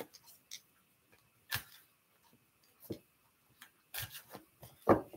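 A few faint, short clicks and soft knocks, scattered roughly a second apart, the loudest near the end.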